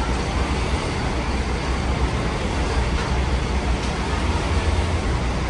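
Large diesel coach engine idling: a steady low rumble with no revving, over the general noise of a bus terminal.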